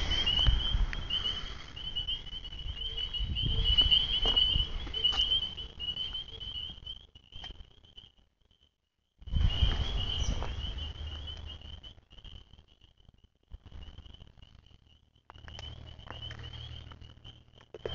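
Steady high-pitched chirping of an insect chorus, pulsing on one pitch, over a low rumble and rustle from the phone being carried. The sound drops out completely for about a second around eight seconds in.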